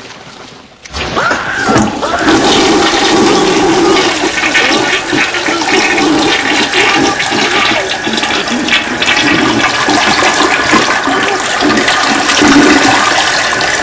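Toilet-flush sound effect: loud rushing and gurgling water that starts suddenly about a second in and keeps going without a break.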